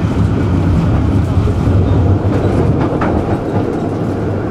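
Tram running along its tracks: a steady low rumble of wheels on rail, with a brief click about three seconds in.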